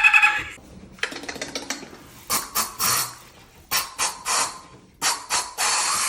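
A man imitating a dolphin with his voice: a fast run of clicks, then several groups of short squeaky bursts, and near the end a long, hissy, high sustained squeal.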